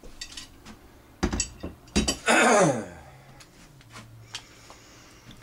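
A Mossberg 500 shotgun barrel being handled and laid down on a workbench: two heavy knocks, one a little over a second in and one about two seconds in. The second knock is followed by a loud half-second scrape that falls sharply in pitch.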